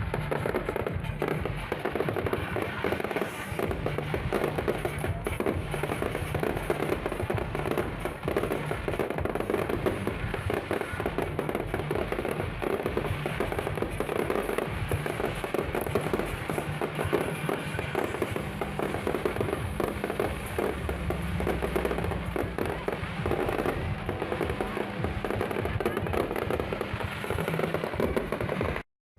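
New Year fireworks display going off densely: a continuous run of rapid bangs and crackling with no let-up, over music. The sound cuts out completely for a moment near the end.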